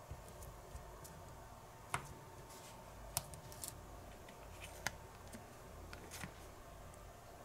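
Light clicks and taps of small plastic toy kitchen utensils handled up close: a toy knife and cutting board working soft gummy candy. There are three sharper clicks, about two, three and five seconds in.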